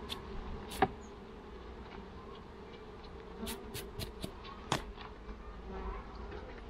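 Honey bees buzzing steadily around an open wooden hive, with a few sharp wooden knocks as honeycomb frames are lifted out and handled. The loudest knock comes about a second in, and a cluster of them comes around four seconds in.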